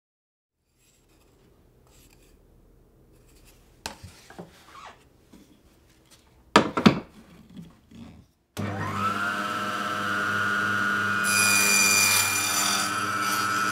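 A couple of sharp knocks as the sled is set down. About two-thirds of the way in, a small benchtop table saw starts abruptly and runs with a steady whine. Near the end, its blade cuts through a thin sheet pushed on a sled, adding a high, hissy edge.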